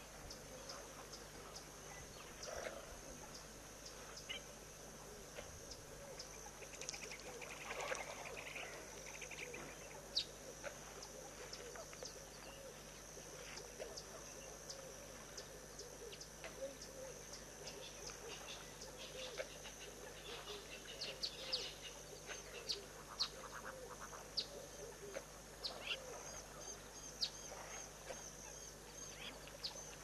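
Natural waterhole ambience: a steady high-pitched insect drone, with many short bird calls and chirps scattered over it, more frequent in the second half.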